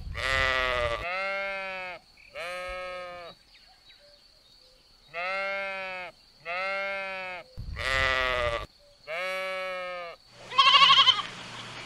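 Sheep bleating: seven drawn-out bleats of about a second each, in two runs with a pause of about two seconds between them. Near the end the sound cuts to a louder, quavering bleat over a low steady hum.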